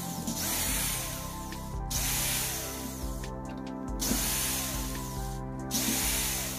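Cordless drill-driver running in about four short bursts with brief pauses, backing the screws out of a 12 V sprayer pump's head cover.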